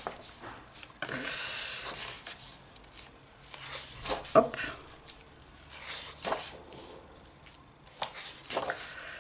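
Pages of a colouring book being turned and handled: a paper rustle about a second in, then a few short flicks and taps of paper.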